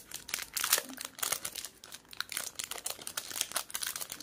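Thin plastic jewellery packet crinkling and crackling irregularly as it is handled and opened to take out a pair of earrings.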